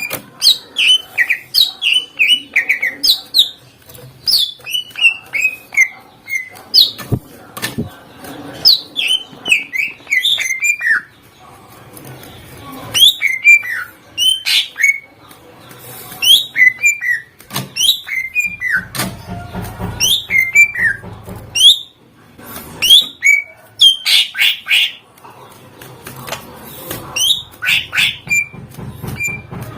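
Cucak ijo (greater green leafbird) singing loudly in full song, its song loaded with mimicked calls of other birds: rapid runs of sharp, downward-sliding whistled notes mixed with clicks. Low buzzing passages come in around the middle and again toward the end.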